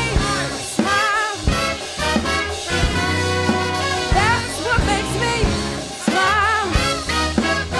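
Funk-soul band playing an instrumental passage: a horn section of trumpet, trombone, alto and tenor saxophone over bass, electric guitar, keyboard and a steady drum beat.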